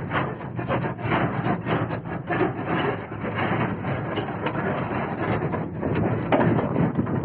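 Hyundai 210 excavator at work: rough scraping and grinding noise with irregular sharp clanks and clicks, typical of steel tracks moving over a trailer deck.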